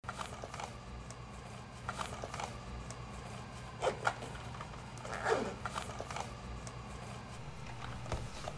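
Handling noise: scattered light clicks and rustles of objects being moved about by hand. Two sharper knocks come about four seconds in and a short scrape a little after five seconds, over a faint low hum.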